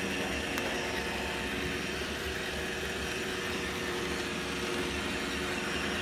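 iRobot Roomba i1+ robot vacuum running across a tile floor: the steady hum of its suction motor and brushes, with a steady whine over it.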